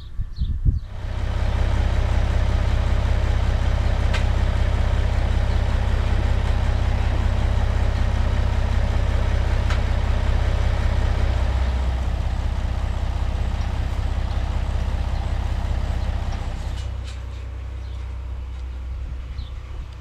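John Deere tractor engine idling steadily, becoming quieter about three-quarters of the way through.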